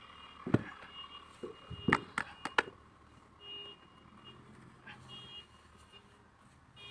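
Wet clay slapped and pressed by hand into a wooden brick mould: a quick run of dull slaps and thuds in the first three seconds.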